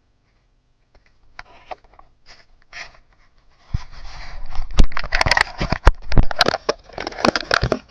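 Hands working a motorbike's light controller and its wiring into place: faint clicks at first, then, from about four seconds in, loud rustling and scraping of plastic and wires broken by sharp clicks and knocks.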